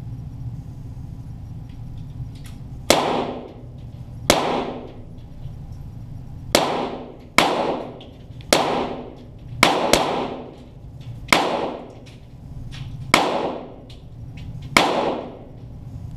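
About ten shots from .22 Walther GSP target pistols, fired one at a time at an uneven pace one to two seconds apart, each crack followed by a short echoing decay.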